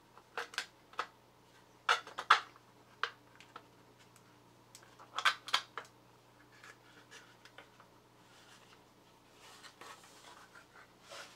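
3D-printed PLA rocking foot pedal being rocked and handled: sharp plastic clicks and knocks in small clusters, the loudest pair about two seconds in, then fainter rubbing and scraping near the end, over a faint steady hum.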